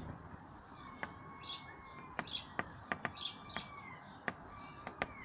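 Sparrows chirping in short calls, among many sharp clicks or taps.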